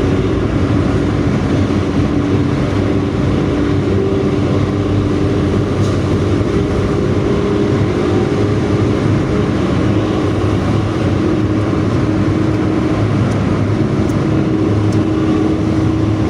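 Intercity bus running with a 'knalpot ngorok' (a deep, snoring aftermarket exhaust), a loud, steady engine drone at a constant pace with no big revs.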